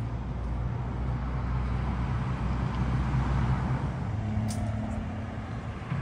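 A vehicle engine running with a steady low drone, growing a little louder toward the middle and easing off near the end. One short click comes about four and a half seconds in.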